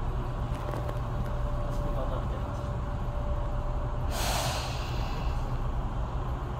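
Tobu 9000 series commuter train running at speed, heard from inside the passenger car: a steady low rumble of wheels and running gear, with a faint steady tone that stops about four seconds in. A brief hiss starts about four seconds in and fades over a second or so.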